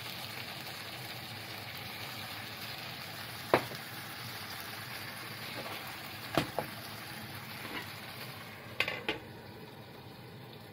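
Filefish pieces sizzling in a frying pan after cooking sake goes in to steam them, a steady hiss. Sharp knocks of utensil on pan come about three and a half seconds in and twice around six and a half seconds, and a clatter near nine seconds as the metal-rimmed lid goes on, after which the sizzle is a little softer.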